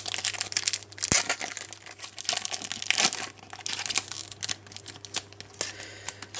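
Wrapper of a sealed trading card pack crinkling and tearing as it is worked open with difficulty, a dense run of irregular crackles and sharp snaps.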